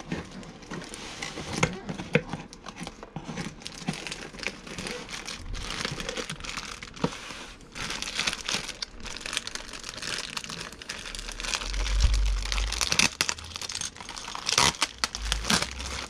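Plastic packaging bags and wrap crinkling and rustling as they are handled, with many sharp clicks and a low thud about three quarters of the way through.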